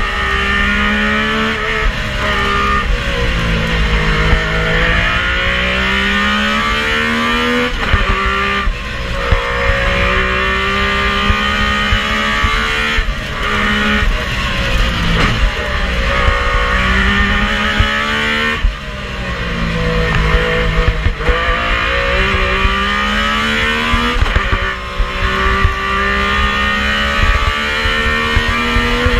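Metro 6R4 rally car's V6 engine heard from inside the cockpit at full pace. The revs climb through each gear and drop at every shift, again and again, with hard dips at the gear changes.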